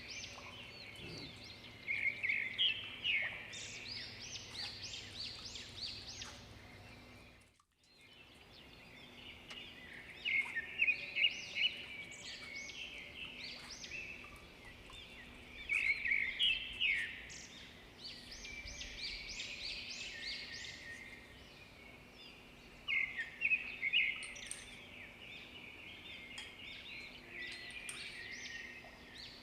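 Birds singing: bouts of quick, high chirping notes repeating every five to seven seconds over a faint steady background. The sound cuts out completely for a moment about eight seconds in.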